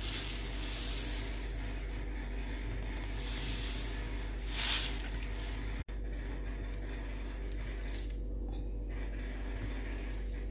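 Sesame seeds pouring from a packet into a plastic blender cup: a soft hiss that swells in waves, loudest about four and a half seconds in, over a steady low hum.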